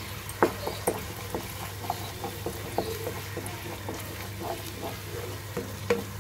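Wooden spatula stirring and scraping onion paste frying in oil in a nonstick kadai, with frequent small irregular clicks and scrapes over a light sizzle; the onions are browning with ginger-garlic paste just added.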